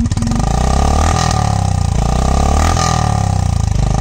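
Honda H'ness CB350's air-cooled single-cylinder engine revved through its chrome exhaust silencer, the note rising and falling back several times.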